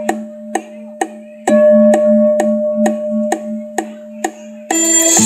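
Buddhist temple bell ringing with a slow pulsing hum, struck again about a second and a half in, over a wooden temple block tapped steadily about twice a second. Instrumental music comes in near the end.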